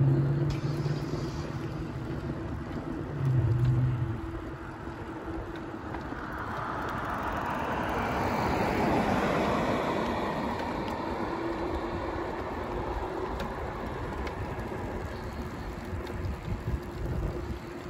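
Road traffic beside the path: a vehicle passing, swelling to its loudest about nine seconds in and then fading, over a steady outdoor rumble.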